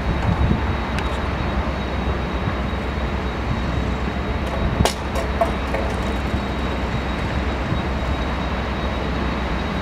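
Steady, distant jet-engine rumble of airport ambience, heavy in the low end, with one sharp click about five seconds in.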